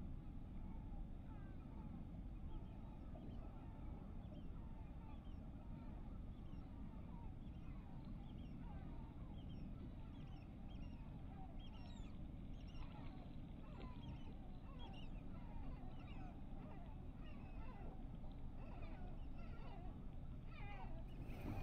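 A flock of birds calling in a continuous chatter of short calls, over a steady low rumble.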